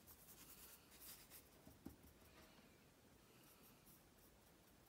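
Faint scraping of a metal palette knife on a glass palette, mixing egg-tempera paint.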